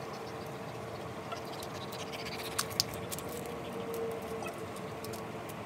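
German Shepherd whining softly while being handled, with a light jingle of metal collar tags and two sharp clicks about halfway through.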